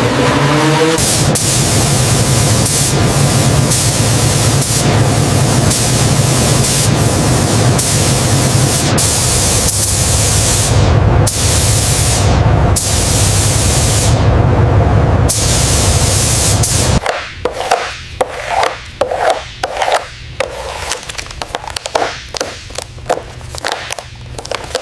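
Compressed-air paint spray gun hissing steadily over a low hum, applying a clear coat. About two-thirds of the way through it changes to short, quick bursts, two or three a second.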